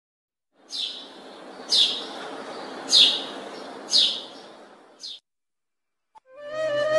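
Sparrow chirping: five sharp, falling chirps about a second apart over a steady background rush. Flute music begins near the end.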